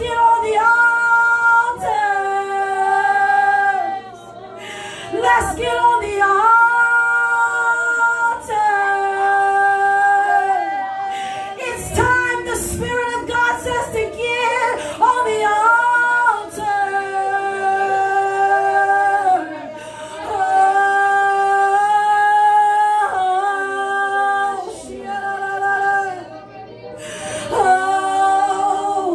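A woman's voice singing long, held notes that step between pitches in phrases of a few seconds each, in free, spontaneous worship singing. A faint steady low hum runs underneath.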